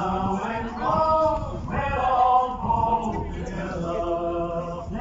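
Several men's voices singing together unaccompanied, in long held notes, heard through a loudspeaker.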